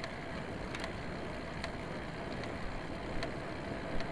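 Riding noise from a camera on a road bike climbing in a race bunch: a steady rush of wind and tyres on the road, with a few faint clicks.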